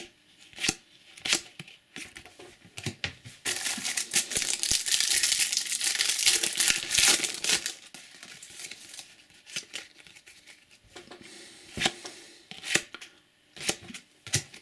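A foil trading-card booster pack being torn open and crinkled, with a few seconds of continuous tearing and crackling starting about a quarter of the way in. Scattered clicks and rustles come before and after as the pack and its cards are handled.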